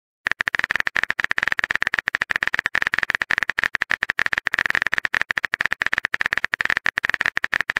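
Simulated phone-keyboard typing clicks from a texting-story app, a rapid, even stream of key taps, about ten a second, starting a moment in as a message is typed out letter by letter.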